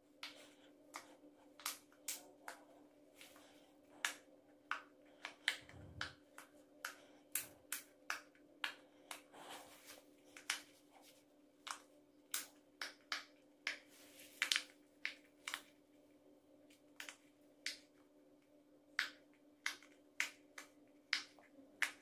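Bubbles of a large silicone pop-it fidget toy being pressed through by a finger one at a time: a long string of short sharp pops, one or two a second, with a brief pause past the middle.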